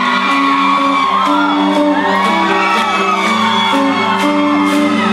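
Live rock band playing a slow instrumental intro of held, stepping notes without drums, heard from the crowd in a large hall. Audience members whoop and cheer over it.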